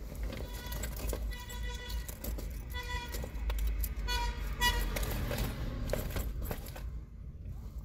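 Rummaging through a fabric waist bag: small clicks, rustles and a jangle of keys over a low steady rumble, with a few short pitched tones in the middle.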